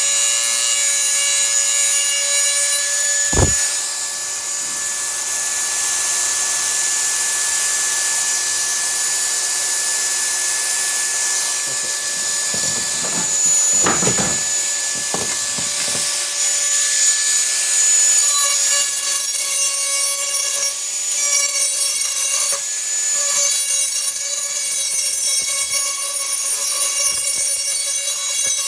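Power grinder running steadily with a high grinding hiss as it sharpens the edge of a steel garden hoe. A knock about three seconds in and a few more around the middle, and the grinding turns more uneven and pulsing in the second half.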